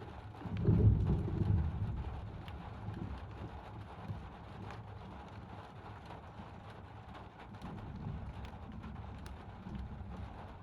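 Thunder rumbling, loudest about a second in and then fading to a low, drawn-out rumble, with scattered ticks of rain throughout.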